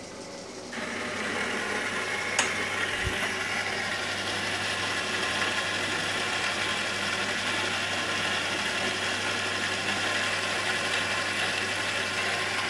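1984 Taiwan-made metal-cutting band saw running with steady mechanical noise as coolant is pumped onto the blade at a rectangular steel tube. The noise steps up about a second in, with a single sharp click shortly after.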